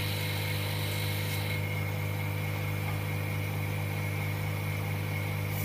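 Vacuum pump of an LCD laminating machine running with a steady hum, holding the LCD and film down on the plate; a higher hiss drops away about a second and a half in.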